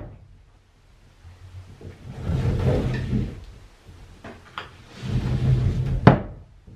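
A sliding door rumbling along its track twice, the second run ending in a sharp clack as it hits the frame about six seconds in, with a couple of light knocks in between.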